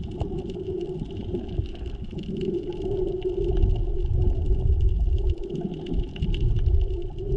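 Underwater sound through a GoPro's waterproof housing while snorkeling: a muffled low rumble of moving water that grows louder about halfway through, over a steady hum and a scattering of faint crackling clicks.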